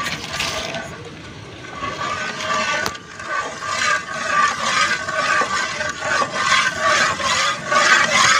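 A steel ladle stirring milk in a metal pan, scraping against the pan in a steady rhythm while rose essence is mixed in, getting louder after about two seconds.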